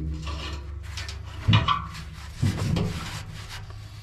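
Steel scraping and knocking as a YITAMOTOR clamp-on pallet fork is worked onto the lip of a tractor loader bucket and clamped: a few rubbing scrapes and knocks, the loudest about a second and a half in, over a steady low hum.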